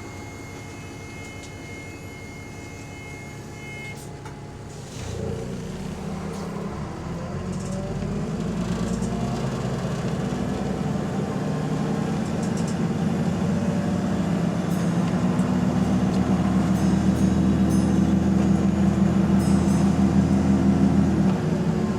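A steady electronic beep tone for about four seconds, then a double-decker bus's diesel engine pulling away and accelerating, its pitch and loudness climbing for about sixteen seconds before dropping at a gear change near the end. The bus is one the uploader calls limping with a bad turbo.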